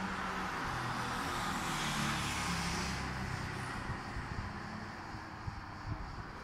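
A car passing on a road, its engine and tyre noise rising to its loudest about two seconds in and then fading.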